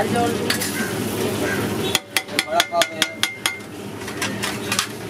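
Steel potato masher pressing and clinking against a hot iron griddle as a dabeli filling is mashed, over a frying sizzle. A quick run of about ten metallic clinks comes about two seconds in.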